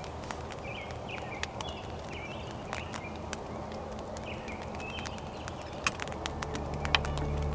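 Rural field ambience: small birds chirping in short calls over a steady low hiss, with scattered sharp clicks. Music fades in about six seconds in.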